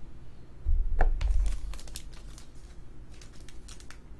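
A trading card being slid into a thin plastic sleeve: light crinkling and small clicks of the plastic, after a low thump and a sharp click about a second in.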